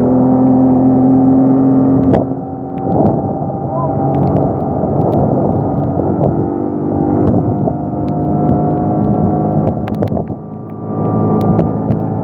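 Boat motor running steadily while the boat is underway. The engine note eases off briefly about two seconds in and again around ten seconds in.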